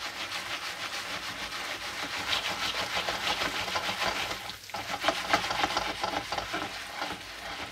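Jiffy Pop aluminium foil popper sizzling on a hot stove burner as its oil heats, with a scraping rub as the pan is shaken back and forth over the heat; the kernels have not yet started to pop. The sound dips briefly about halfway through.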